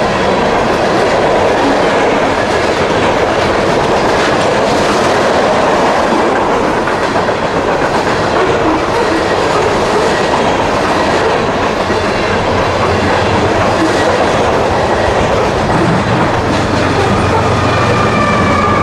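Freight train rolling past, steel wheels clacking steadily over the rail joints.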